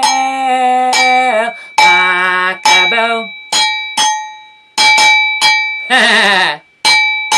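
A handheld cowbell struck about ten times in an uneven rhythm, each hit ringing out and fading quickly. A woman's voice holds a sung note on "bell" over the first strikes, and a short wavering vocal sound comes about six seconds in.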